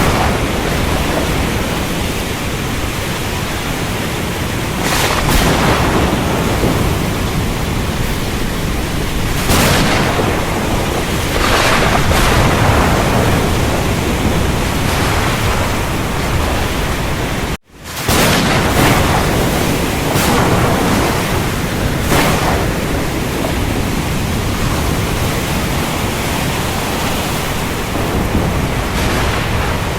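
Strong gusting wind blowing over the microphone: a loud, continuous rushing noise that swells with each gust, broken once by a brief sudden gap a little past halfway.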